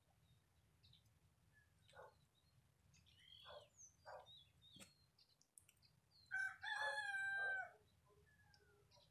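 A rooster crowing once, a single drawn-out call of about a second and a half, about two-thirds of the way in. A few short, faint bird calls come before it.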